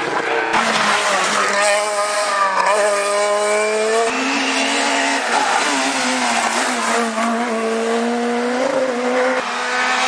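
Rally car engine at high revs on a tarmac stage, its pitch climbing within each gear and dropping sharply at the gear changes.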